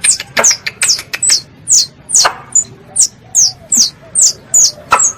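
Squirrel (tupai) calls played as a hunting lure: a rapid, even series of sharp high chirps, each sliding down in pitch, about two to three a second.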